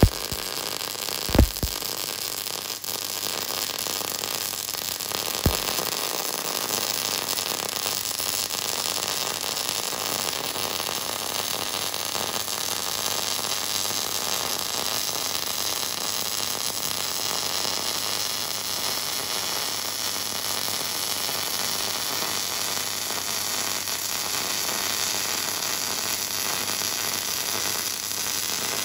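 MIG welding arc, a steady hissing crackle held for a long continuous bead, with two low thumps in the first few seconds.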